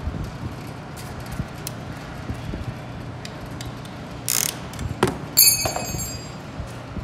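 Band-type piston ring compressor being worked with its ratchet key: small metal clicks, a short rasp a little past four seconds in, then a sharp metallic clank that rings briefly as the band springs loose off the piston.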